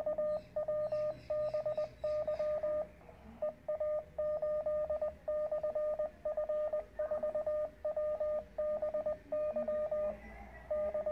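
Morse code sidetone from a Weber MTR QRP transceiver sending a stored message in beacon mode. A single mid-pitched beep is keyed in dots and dashes, with a short gap about three seconds in. It stops about ten seconds in and starts again just before the end.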